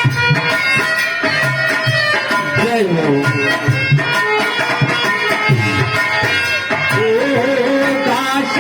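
Indian folk music with a dholak hand drum playing a steady rhythm under a held, reedy melody line.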